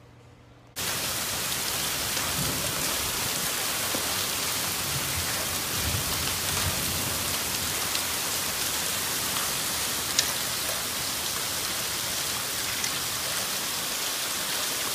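Heavy rain and hail coming down hard: a dense, steady hiss with scattered sharp ticks of hailstones, starting abruptly about a second in.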